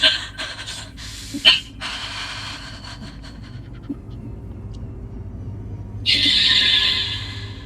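A person breathing hard and gasping, with a few sharp clicks early on and one long, loud breathy rush of air about six seconds in.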